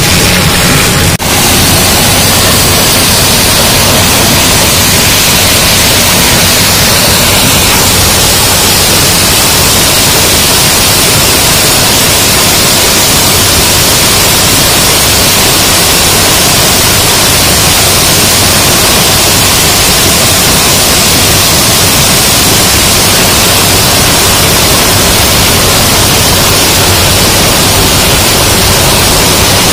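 Loud, steady rushing noise from a Geringhoff maize header on a combine harvesting corn: stalks and leaves thrashing and brushing past the header snouts close to the microphone, with a low machine hum underneath.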